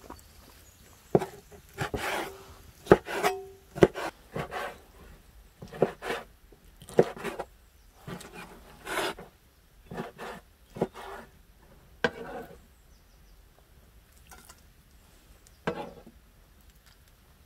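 Large cleaver chopping raw liver on a wooden cutting board: irregular sharp knocks with short scraping sounds between them, thinning out to a few strokes in the last few seconds.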